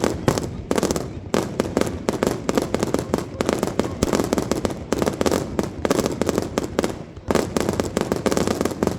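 Fireworks display: a continuous barrage of bangs and crackling shells with no pause.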